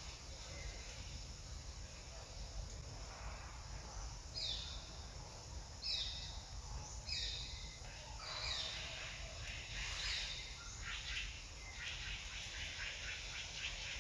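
A bird calling: a series of about five short, high, falling notes, roughly a second and a half apart, over a steady low rumble.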